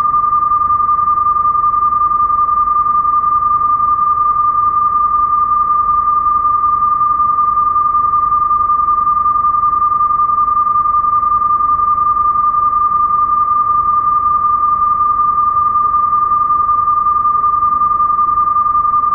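Steady, unbroken test tone of a single pitch, the reference tone that accompanies broadcast colour bars, over a faint hiss.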